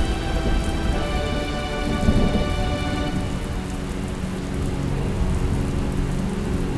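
Heavy rain pouring down on a road, with a rumble of thunder about two seconds in. Soft background music of held notes runs underneath.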